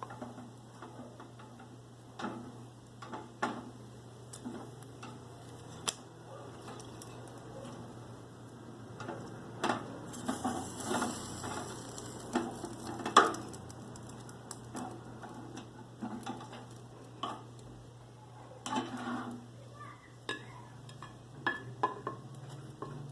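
A kitchen utensil clinking and scraping against a metal broiling pan as chicken cutlets are turned over, in scattered irregular knocks, with the chicken sizzling under the broiler.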